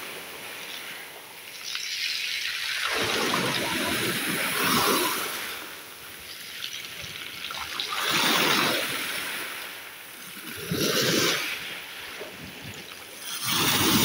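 Small sea waves washing in and sloshing at the water's edge, surging and falling back about five times, every two to three seconds.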